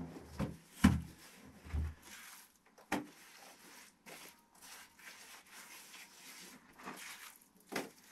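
A few sharp knocks and light scraping in a small earthen room, as a woven basket is set down and soil is worked by hand; the loudest knock comes about a second in, another just before the end.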